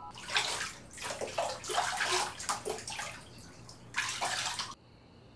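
Bathwater splashing and sloshing in a bathtub as a person moves in it, in irregular bursts that cut off suddenly about three-quarters of the way through.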